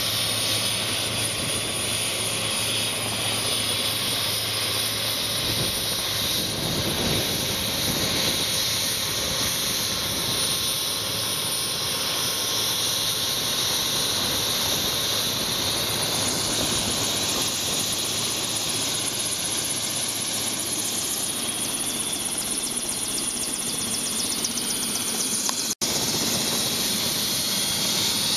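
Helicopter running on the ground with its main rotor turning: a steady rush of rotor and engine with a thin high whine on top. The sound cuts out for an instant near the end.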